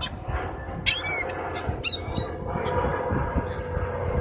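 Birds squawking: two short calls, about a second apart, over a steady low hum that comes in about halfway through.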